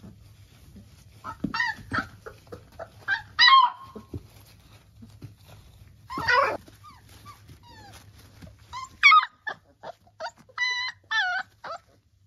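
Three-week-old Labrador puppies yelping and squeaking as they play-fight, a scatter of short high-pitched cries in small clusters, several in quick succession near the end.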